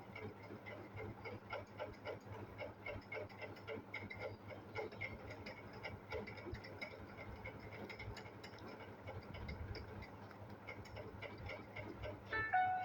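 Faint, regular ticking over low room noise. Near the end a mobile phone ringtone starts: a simple melody of short electronic beeping tones stepping up and down, one of the Symphony L46's built-in ringtones.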